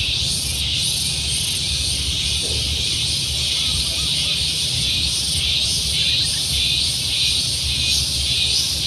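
A dense, high-pitched insect chorus buzzing steadily and pulsing about twice a second, over a low rumble.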